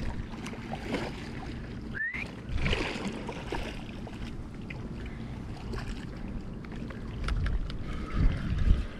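Wind buffeting the microphone over water splashing as a hooked nurse shark thrashes at the surface, with scattered small splashes and ticks. A short rising squeak comes about two seconds in, and louder low thumps come near the end.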